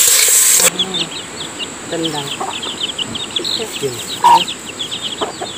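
Pork sizzling loudly in hot oil in a pot, cut off abruptly in the first second. Then chickens clucking, with a quick run of many short, high chirps and one louder call near the middle.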